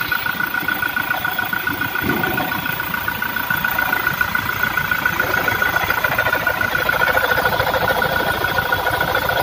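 Toyota Fortuner VRZ diesel engine idling, with fast clatter and a steady high whine over it. The car is in for a rough noise from the engine bay that the mechanic says usually comes from the alternator.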